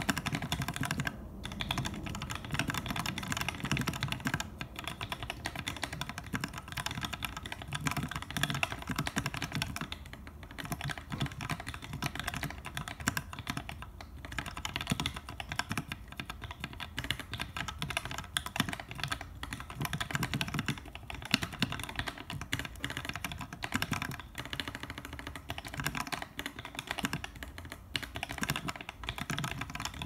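Fast continuous typing on a Keeb.io Levinson split ortholinear mechanical keyboard fitted with lubed Gateron Yellow linear switches, an aluminium plate and GMK keycaps. It makes a dense clatter of key strokes, broken by a few short pauses.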